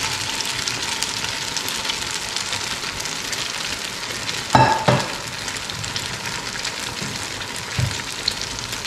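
White sauce and chicken sizzling steadily in a hot frying pan on a gas burner while a silicone spatula spreads the sauce. A short, louder noise sounds about halfway through.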